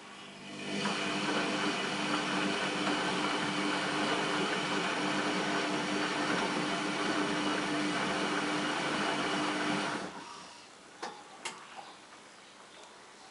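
Front-loading washing machine tumbling a load in foamy water: the drum turns with a steady motor hum and sloshing, starting about a second in and stopping about ten seconds in. A couple of sharp clicks follow.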